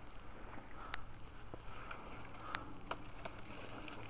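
Faint outdoor ambience: a steady low rumble of wind on the microphone, with scattered sharp clicks and light rustling.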